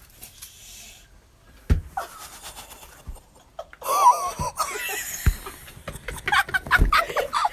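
Girls laughing and squealing, starting about halfway through, with a few dull knocks from the phone being handled.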